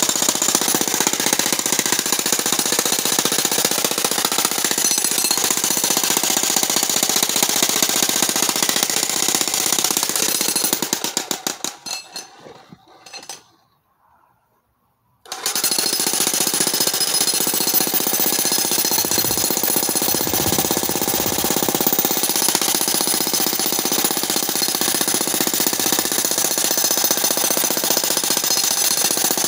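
Corded electric demolition hammer breaking rock with rapid, continuous blows. It trails off about eleven seconds in and is near silent for a couple of seconds, then starts again abruptly and runs steadily.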